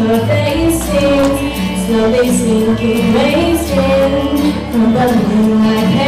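A girl singing a pop song into a microphone over a recorded backing track with a steady bass line and light cymbal ticks.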